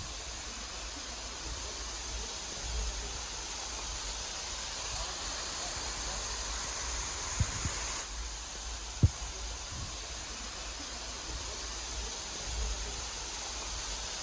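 Steady rushing hiss of falling water, with a few brief low knocks around the middle.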